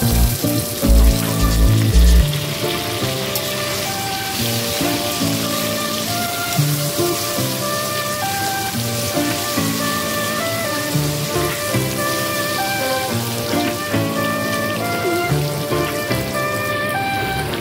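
Potato and tomato pieces frying in a wok, a steady sizzle, under background music with a simple melody of held notes and a heavy beat in the first couple of seconds.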